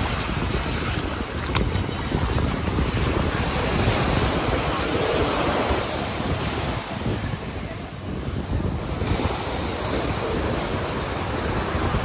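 Surf washing up on a sandy beach, mixed with wind buffeting the microphone in a rough low rumble.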